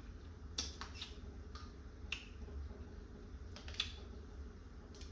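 Blue crab shell being cracked and picked apart while eating, with wet mouth sounds: a scattered string of short sharp clicks and crackles at irregular moments over a faint steady low hum.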